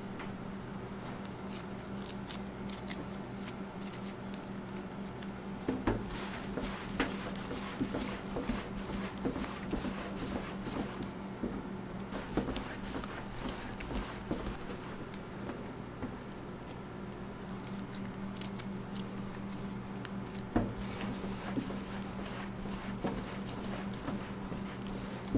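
Gloved hands rounding pizza dough balls on a stainless steel worktable: irregular soft squishes, slaps and taps of dough and nitrile gloves, a couple of them sharper. A steady low hum runs underneath.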